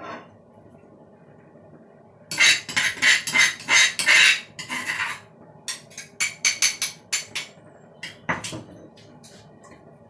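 A metal spoon knocking and scraping paste off a stone pestle over a frying pan: a rapid clatter of sharp knocks for about three seconds, then a run of separate taps and one last hard knock.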